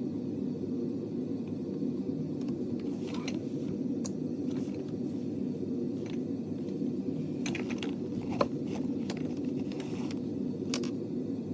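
A steady low hum or rumble, with light clicks and rustles of small things being handled close by, and one sharper click about eight seconds in.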